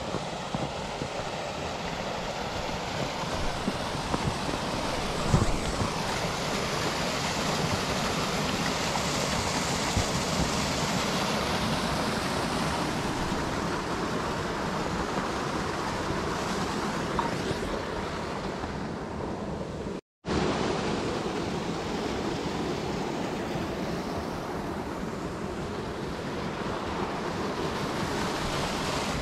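Small mountain stream and waterfall rushing steadily in an even, continuous wash of water noise, with a brief cut to silence about two-thirds of the way through.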